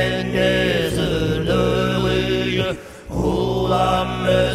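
Overtone chanting: a low drone voice holding long notes with clear whistling overtones above it, broken by a short breath about three seconds in.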